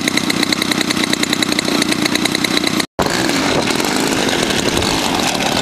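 Propeller engine of a Bird Dog aircraft running steadily with a rapid even buzz, broken by a brief dropout about three seconds in.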